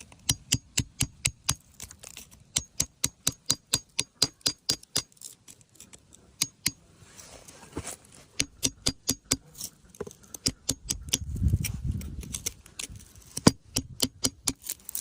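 Rapid runs of sharp taps of hard objects, about four a second, each with a brief glassy ring, broken by short pauses; a low rumble rises a little past the middle.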